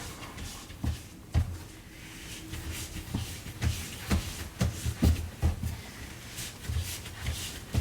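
Hands shaping soft, buttery bread dough into a ball on a work surface: irregular soft thumps and slaps of the dough against the counter.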